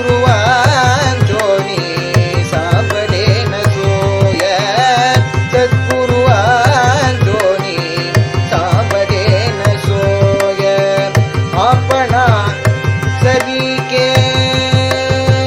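Abhang bhajan music: a steady mridangam rhythm from a metronome app under harmonium, with short ornamented melodic phrases that bend in pitch, likely the voice singing without words.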